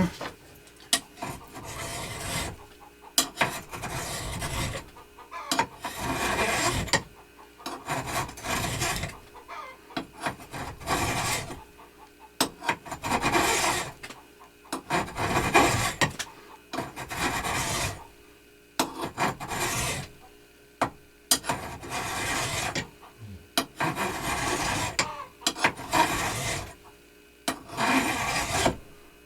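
Hand file rasping across a part of a belt grinder in even strokes, about one every two seconds with short pauses between. It is a safe-edge file, its toothless edge held against a neighbouring surface so that surface is not cut.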